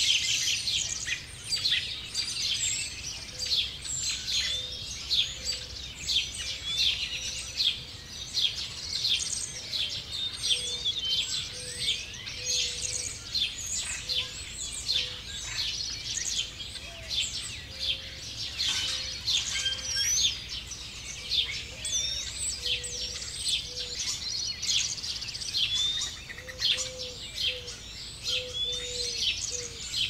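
Spring dawn chorus: many songbirds chirping, trilling and singing over one another. A low, short note repeats every second or so underneath.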